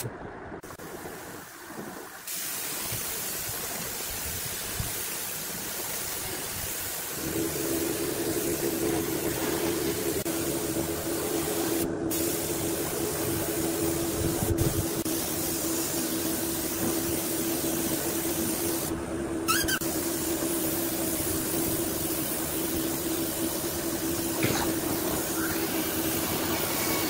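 Gravity-feed air spray gun hissing steadily as it sprays finish onto bare pine, with a steady low hum joining in about seven seconds in.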